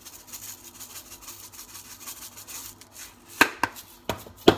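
Dried minced onion shaken from a small plastic spice jar over raw chicken pieces in a plastic tub, a faint fast rattle and patter. From about three and a half seconds in come four sharp clicks and knocks as the jars are handled and set down on the counter.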